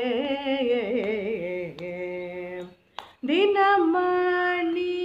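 A woman singing a Tamil Ashtapadi devotional song solo, stretching the syllables into wavering, ornamented notes. She breaks briefly for breath a little past the middle, then starts a new phrase on long held notes.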